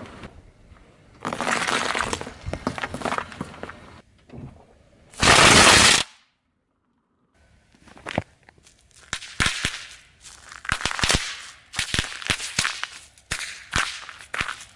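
Snapper bang snaps going off under a shoe sole on asphalt: many sharp cracks in quick, irregular clusters from about eight seconds in. Before that, a car tyre rolls over a foam clog, with noisy rushing stretches and a loud burst ending about six seconds in, then a second of silence.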